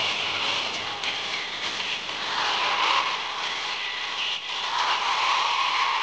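Large concert audience screaming and cheering, a loud continuous din that buries the stage music; the screaming swells about two seconds in and again past the middle.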